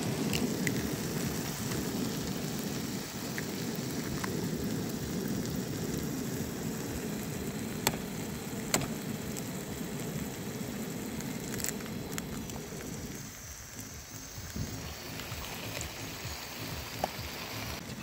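Menemen of peppers, onions and tomatoes sizzling and bubbling in a frying pan over a portable gas stove, with a few sharp clicks. The sizzle eases a little after about thirteen seconds.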